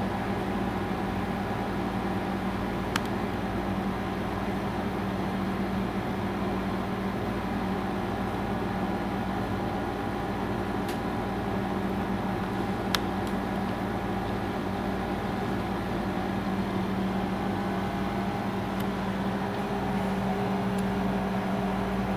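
Electric motor-driven honey extractor running: a steady motor hum with a low tone and a whir, a little louder near the end. Two faint clicks are heard along the way.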